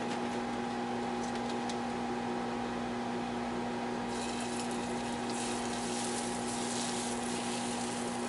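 Liquid egg whites poured from a carton into a hot nonstick frying pan, a hiss of liquid starting about four seconds in and running for a few seconds, over a steady hum.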